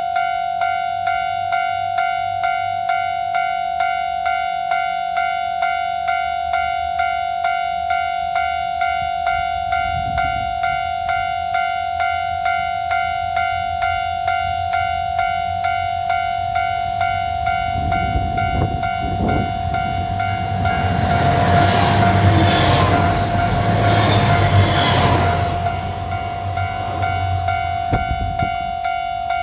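Japanese level-crossing alarm bell ringing steadily at about two strikes a second while a diesel railcar passes over the crossing. The train's rumble grows from about halfway through, is loudest a little after, then fades.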